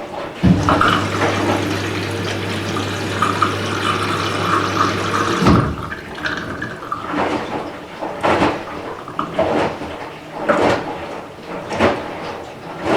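Candy Smart Inverter front-loading washing machine taking in water: a steady rush of water with a low hum, which stops about five and a half seconds in. After that come separate swishes about once a second, as water sloshes in the turning drum.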